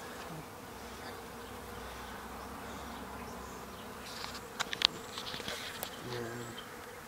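Honey bees buzzing steadily around an opened hive and nuc box. A few sharp clicks about four to five seconds in, from the wooden nuc box and frames being handled.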